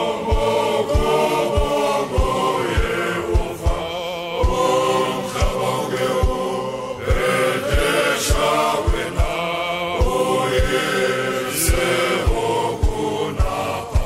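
Voices singing a hymn in a chant-like style, with a low drum beat two to three times a second.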